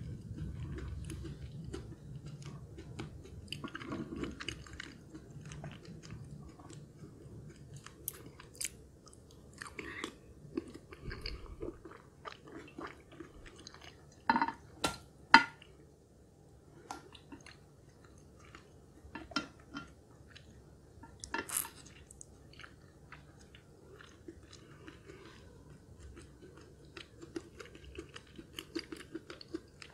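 Close-miked chewing of soft shrimp wontons, with scattered sharp clicks, the loudest two in quick succession about halfway through.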